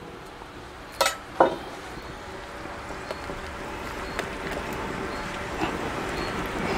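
Two sharp knocks against a stainless steel mixing bowl about a second in, then a steady background rumble that slowly grows louder while a spatula stirs the batter in the bowl.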